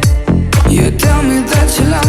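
Background dance music with a steady beat of deep kick drums, about two a second, and a melody line over it.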